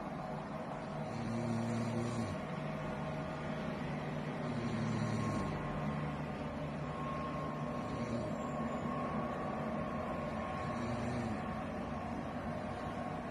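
A woman snoring in sleep: four low snores, about three seconds apart, over a steady background noise.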